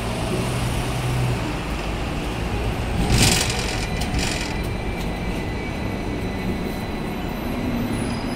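Hong Kong double-decker tram running, heard from inside the upper deck: a steady rumble and rattle of the car body and wheels on the rails, with a low hum in the first second and a brief, louder burst of noise about three seconds in.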